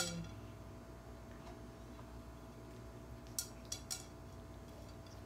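Eating sounds from someone biting into a folded slice of pizza and handling the plate: a sharp click at the start, then three light clicks in quick succession about three and a half seconds in, over a low steady hum.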